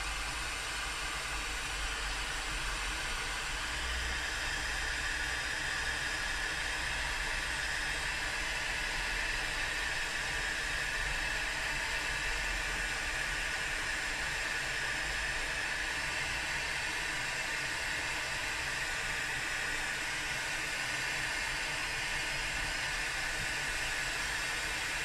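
Electric hot air gun running steadily, a constant airy rush from its fan and nozzle as it shrinks red heat-shrink tubing over a crimped cable terminal.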